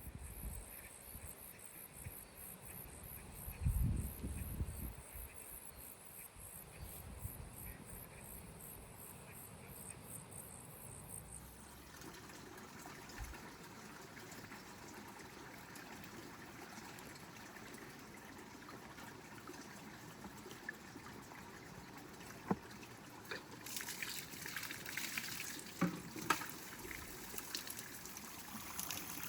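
Water trickling and splashing, with a few sharp clicks and knocks near the end.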